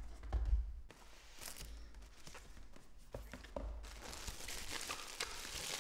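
Plastic bubble wrap rustling and crinkling as a package wrapped in it is handled, growing to a dense crackle about four seconds in. A few dull thumps near the start.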